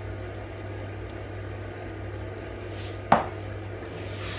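A single sharp knock about three seconds in, a plastic salt container being set down on the kitchen counter, over a steady low hum.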